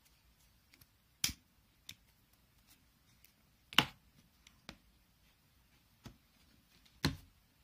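A few sharp clicks and taps, the loudest a little over a second in, just under four seconds in and about seven seconds in: a plastic lighter and a hot glue gun handled at a craft table.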